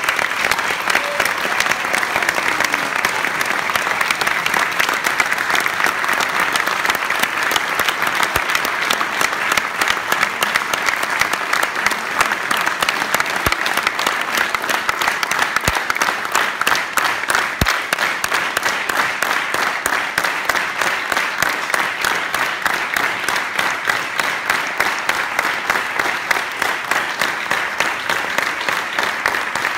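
Concert audience applauding, a dense, sustained clapping that breaks out as the band's music ends. In the later part the clapping grows more even, falling into a beat of about three claps a second.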